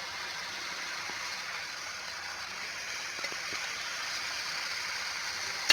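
Chicken pieces sizzling in hot oil in a pan: a steady frying hiss, with a few faint clicks around three seconds in.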